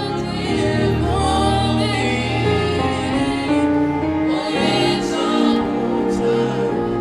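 Gospel worship music: held chords over a bass line, with singing voices above.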